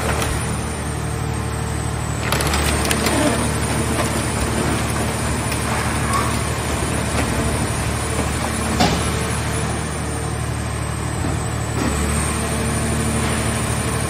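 Portable vehicle-shell hydraulic baler running, its power unit making a steady drone while the press lids swing open from the compressed car body. Sharp cracks and creaks of metal come about two seconds in, again a second later, near nine seconds and near twelve seconds.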